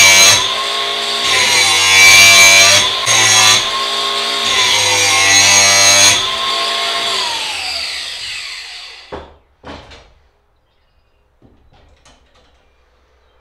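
Cordless angle grinder grinding the edge of a steel lawn mower blade held in a sharpening jig, its whine dipping in pitch each time the disc bites. About six seconds in it is switched off and winds down with a falling whine, followed by two sharp knocks and a few faint clacks near the end as the blade is handled in the jig.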